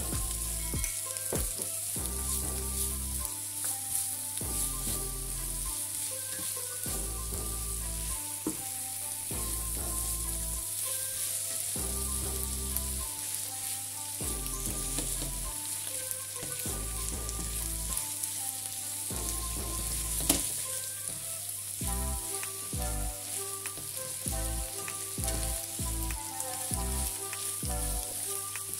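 Diced vegetables sizzling as they fry in a pan, stirred and turned with a plastic spatula that clicks and scrapes against the pan, one sharper knock about twenty seconds in. Background music runs underneath.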